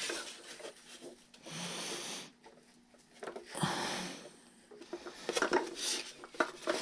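Hands rubbing and handling a foam RC plane wing while squeezing a tube of Shoe Goo into a crack in it: two soft rubbing sounds about a second long each, then a few light clicks and taps near the end.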